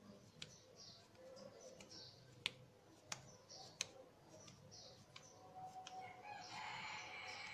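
Near-quiet kitchen: soft sounds of hands pressing mashed potato mixture around a halved boiled egg, with three sharp clicks around the middle and faint high chirps in the background.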